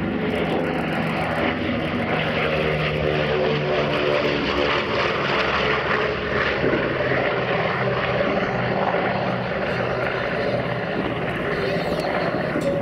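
Boeing B-29 Superfortress's four Wright R-3350 radial engines and propellers running as it flies past low. The engine note drops in pitch about halfway through as the bomber passes and heads away.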